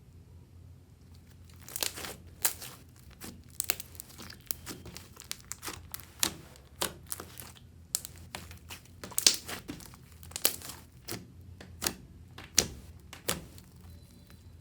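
Fluffy slime being squeezed and kneaded in a plastic bag: crinkling with sharp, irregular pops and crackles that start about a second and a half in and keep coming until near the end.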